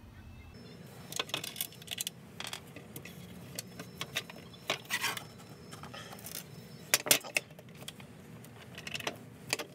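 Small clicks and clatters of plastic and metal parts being handled, as the metal indexing stop is worked off a plastic Kreg Rip Cut sled. A sharper pair of knocks comes about seven seconds in.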